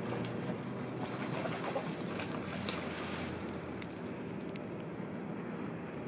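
Steady low rumble and hiss with a faint low hum underneath, with no clear single event.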